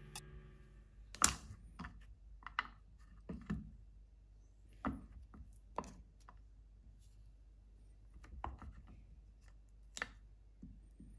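Kitchen knife slicing a wedge of hard sheep's cheese on a wooden cutting board: sparse, irregular soft knocks and clicks of the blade meeting the board, about a dozen in all.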